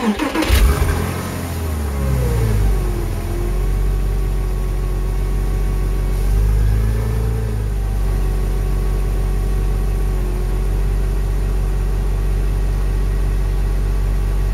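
1999 Porsche Boxster's flat-six engine heard at the tailpipe, started after its oil change to circulate the fresh oil. Revs start high and fall over the first few seconds, then it settles into a steady idle, with a brief small rise and fall in revs about halfway through.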